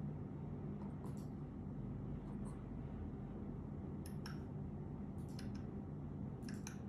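Steady low hum of room tone, with a handful of faint, brief clicks, some in quick pairs, scattered about a second apart.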